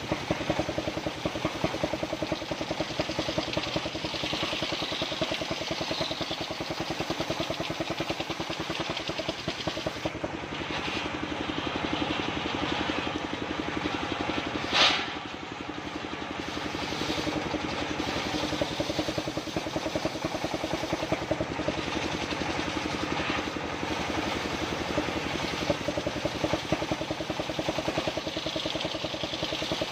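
Engine of a homemade circular saw rig running steadily, with a fast even pulse. One sharp, loud knock comes about fifteen seconds in.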